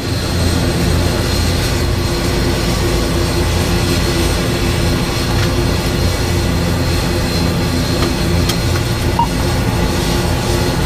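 Cockpit noise of an ATR turboprop with one Pratt & Whitney PW127-series engine running while the second engine is being started: a steady, loud engine drone with a thin high whine over it.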